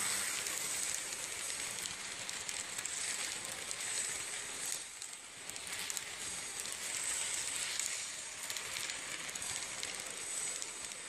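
HO scale model train running close past, its wheels rolling on the rails as a steady rattling hiss with many fine clicks. The sound is briefly quieter about five seconds in.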